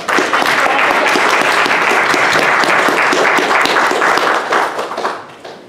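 Audience applauding: many hands clapping in a dense, steady patter that starts all at once and dies away near the end.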